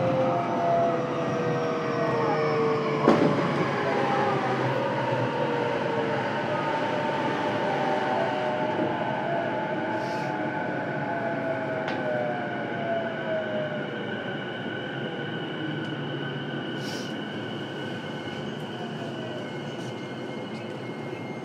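An electric train slowing to a stop, its motor and inverter tones gliding down in pitch over about ten seconds. There is a click about three seconds in and two short air hisses later on. It is heard from inside a stopped train with its doors open at a station.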